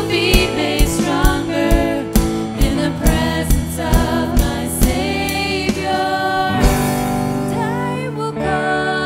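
Christian worship song with singing over band accompaniment and a steady drum beat about twice a second. The drums stop about seven seconds in, leaving held chords.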